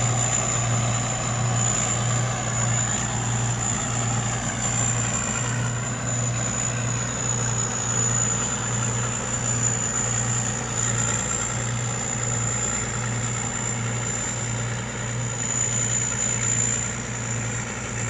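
Thai Seng Yont 'Chao Phayu Thoranong' rice combine harvester running steadily while harvesting, a pulsing low engine hum under a steady high whine.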